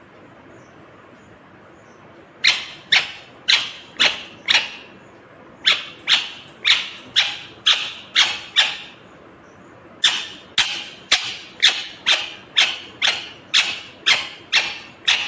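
Ringneck parakeet calling in three runs of short, sharp, shrill calls, about two a second, with brief pauses between the runs.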